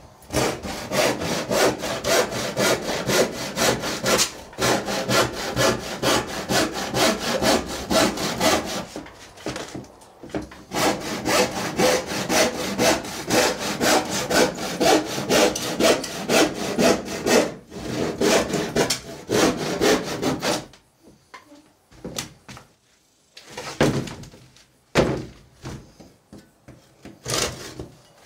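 Handsaw cutting through a wooden panel by hand in fast, even back-and-forth strokes, with two short breaks. The sawing stops about three quarters of the way through, and only a few scattered short knocks and scrapes follow.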